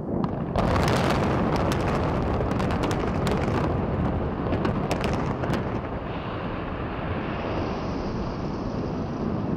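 Explosives implosion of a 32-story post-tensioned hotel tower: a sudden loud blast about half a second in, followed by many sharp cracking reports over the next five seconds, giving way to a steady rumble.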